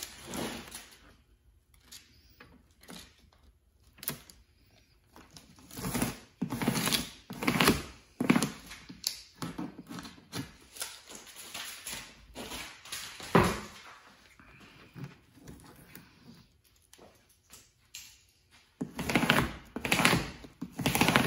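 Shurtape foil duct tape being laid along a duct board seam and rubbed down, with irregular scraping and rubbing strokes of a squeegee and hand across the foil, which seals the heat-activated tape to the seam. The strokes come in clusters, the loudest near the middle and toward the end.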